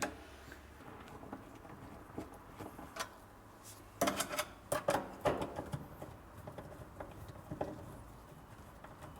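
Screwdriver turning the overlay adjustment screw on a 165-degree soft-close cabinet hinge: quiet metal scraping and clicks, with a cluster of sharper clicks about four to six seconds in.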